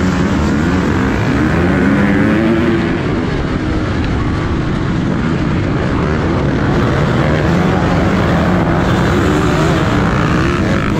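A pack of motocross dirt bikes accelerating hard off the start gate, many engines revving together, their pitches climbing and dropping as they shift up, heard from a rider's helmet in the middle of the pack.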